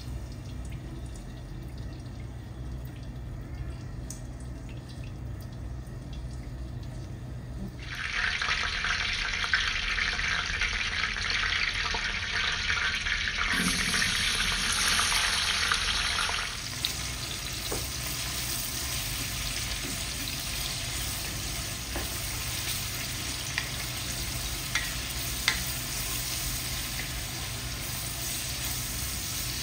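Sliced onions frying in hot vegetable oil in a steel pot, with a steady sizzle. The sizzle starts loud about eight seconds in and settles a little lower after about sixteen seconds, with a few light clicks from stirring with a wooden spoon.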